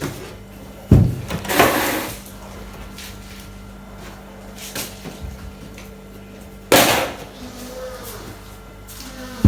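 Dull thumps and knocks on a wooden worktable as chips dough is handled: a sharp thump about a second in followed by a short scrape, another knock about two-thirds of the way through, and a third at the end, over a faint steady hum.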